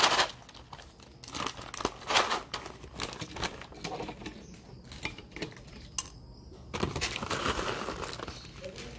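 Packaging of a bag of whole-bean coffee rustling and crinkling as it is handled and opened, with small clicks and clatter of roasted coffee beans. A sharp click comes right at the start, and a longer rustle comes near the end.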